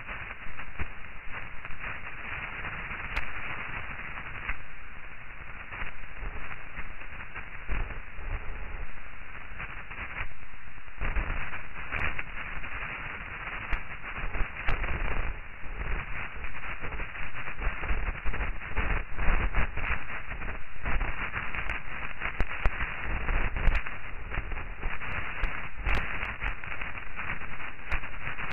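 Crackling hiss like radio static, swelling and fading unevenly, with scattered sharp clicks.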